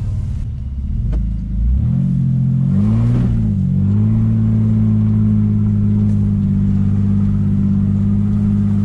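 Old pickup truck's engine, a click about a second in, then the engine revs up and back down about three seconds in and settles into a steady, higher-speed drone as the underpowered truck is driven at a hill it cannot climb.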